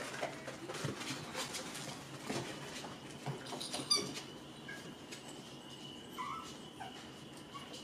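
Toy poodle puppies scampering and tussling on a playpen's floor mats: scattered light patter and soft scuffling knocks, with a brief rapid high squeak about four seconds in.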